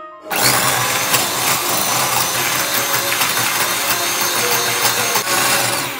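Electric hand mixer running, its beaters whipping softened butter and cream cheese together for frosting. It switches on abruptly just after the start and runs steadily with a low motor hum.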